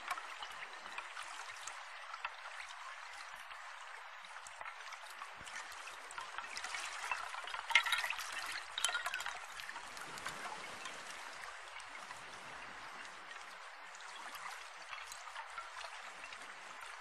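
Running water trickling steadily, a little louder about eight seconds in.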